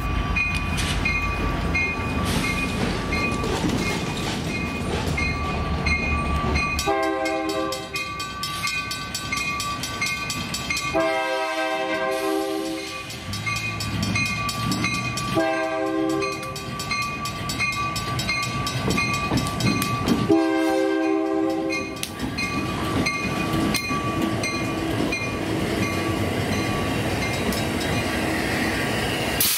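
A train's horn sounds four blasts, the second and last the longest, over the rumble of the passing train. A bell clangs steadily about twice a second underneath.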